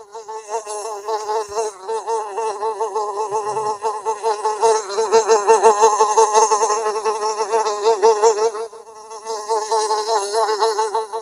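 A fly buzzing steadily in flight, its pitch wavering and its loudness swelling and fading as it moves about. It is loudest in the middle, drops briefly near the end, then buzzes up again.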